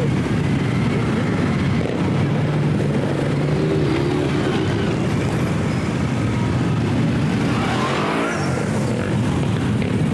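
Many motorcycle engines running together as a column of motorcycles rides slowly past, with an engine revving up near the end.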